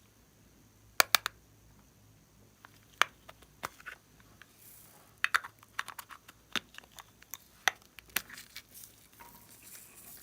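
Slime squeezed and pressed by hand, giving irregular sharp clicks and pops with some soft crinkling between them.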